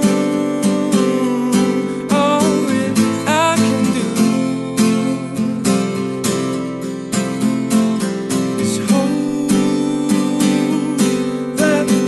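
Small-bodied mahogany acoustic guitar strummed in a steady rhythm, with a man's voice singing a wavering melody over it in the first few seconds and again near the end.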